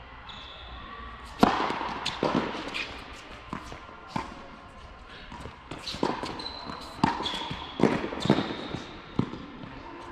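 Tennis rally on an indoor hard court: a string of sharp racket strikes and ball bounces ringing in the hall, the loudest about a second and a half in, with brief high sneaker squeaks between shots.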